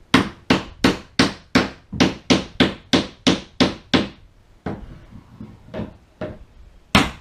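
Nails being driven into wood: a quick run of about a dozen sharp strikes, roughly three a second, then a few softer knocks, and another run of strikes starting near the end.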